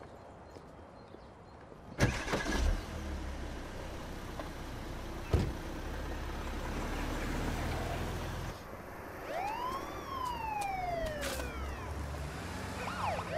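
A car door shuts about two seconds in, and a car engine hums low and steady after it, with another thump a few seconds later. Near the end a police car siren gives one whoop, rising quickly and falling slowly, then a short second chirp.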